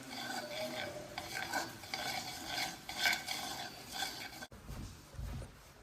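A utensil stirring and clinking in a bowl: a busy run of scrapes and light clicks over a ringing tone. It cuts off suddenly about four and a half seconds in, and a short low rumble follows.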